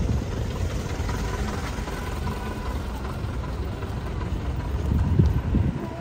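Street traffic: vehicle engines running and passing on a busy road, a steady low rumble that swells briefly about five seconds in.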